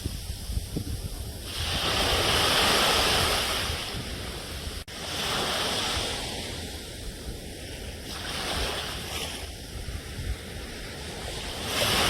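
Sea waves washing onto a shore, each surge swelling and fading about every three seconds, with a brief cut in the sound about five seconds in.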